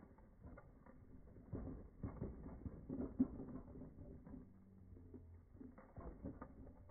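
Slowed-down, low knocks and rattles of a child's bike with training wheels rolling over a concrete driveway, played back in slow motion.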